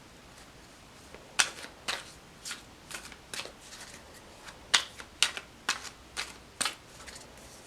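A deck of tarot cards shuffled by hand: about a dozen sharp, irregular slaps and flicks of the cards, starting about a second and a half in.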